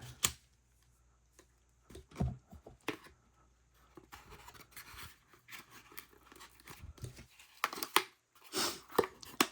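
Handling noise as a pocket knife is put back in its box: a sharp click just after the start, a few light knocks, then rustling and scraping that grows louder near the end.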